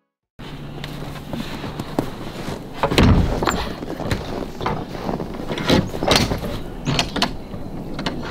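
A shed's double doors being unlatched by hand: a string of clacks and knocks from the latch hardware and doors, the loudest about three seconds in, over a steady hiss.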